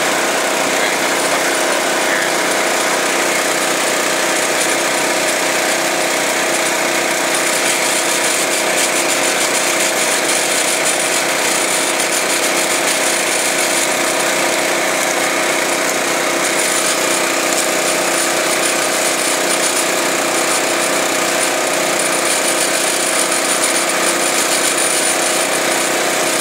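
UTV engine running steadily while the machine drives at an even pace, a constant hum of several stacked tones.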